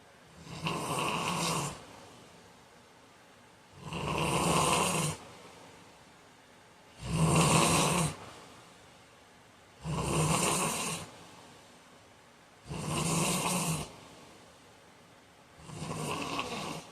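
A man snoring in his sleep: six rough snores at a steady rhythm, about one every three seconds, each lasting about a second.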